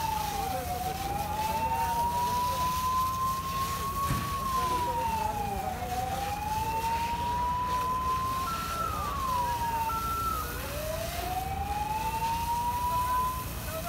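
An emergency vehicle siren wailing, its pitch rising slowly and falling back quickly about every four to five seconds. Around two-thirds of the way through it briefly holds a higher tone and drops before resuming, then cuts off near the end, over a steady low rumble.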